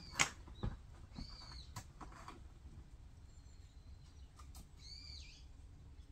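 A bird calling with a shrill, arching note, once about a second in and again near five seconds. Several sharp clicks and knocks from handling the canvas tent and its frame come in the first couple of seconds.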